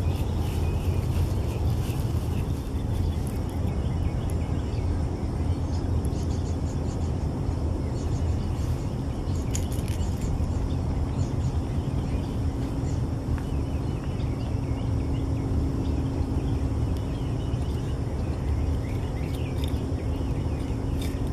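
Birds chirping in short scattered calls over a steady low rumble, with a faint steady hum setting in a few seconds in.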